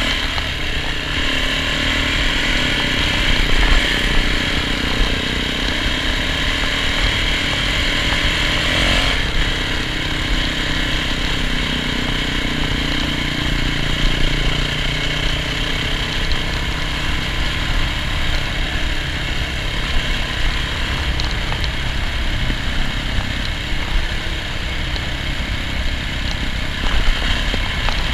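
Yamaha dirt bike's engine running steadily while being ridden, its note easing off about nine seconds in.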